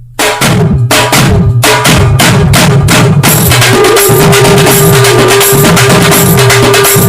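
A mobile phone ringtone: loud, drum-driven Tamil film background-score music that starts abruptly, with a long held note through the second half.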